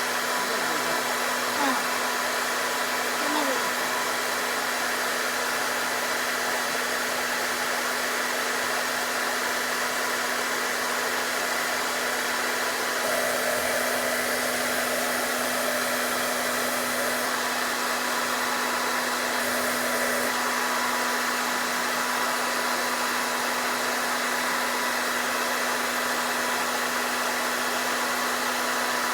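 Hair dryer running steadily, a constant blowing hiss with a steady motor hum.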